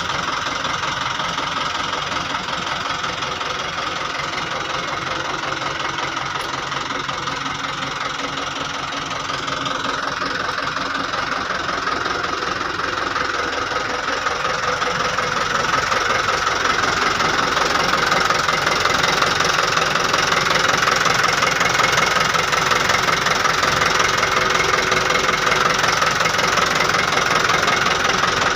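Diesel engine of a 2012 Hino Dutro dump truck idling with a steady clatter, getting a little louder about halfway through. The seller says the engine has no blow-by.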